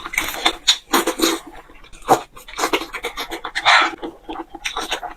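Close-miked wet chewing and smacking of hot-pot food, with irregular quick mouth clicks and a breathy slurp about two-thirds of the way in.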